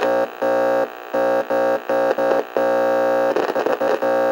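Electronic music: a single buzzy synthesizer note chopped into stuttering on-off stabs, with a short burst of glitchy noise about three and a half seconds in.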